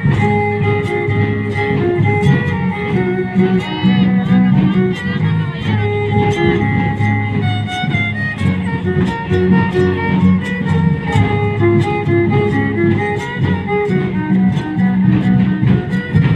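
Violin playing a melody over strummed and plucked guitars in an instrumental passage of a son, with a quick wavering violin figure about four seconds in.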